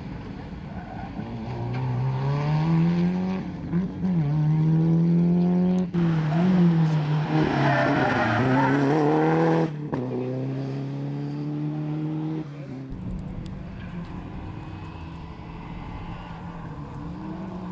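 Rally cars at full speed in several short cuts. A Subaru Impreza's flat-four engine climbs in pitch as it accelerates. A Toyota Celica slides through a tarmac corner with loud tyre squeal, the loudest part. Another car approaches, its engine note rising near the end.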